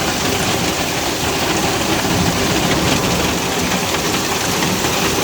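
Hail and heavy rain pelting down hard in a storm: a dense, steady hiss and clatter of many small impacts.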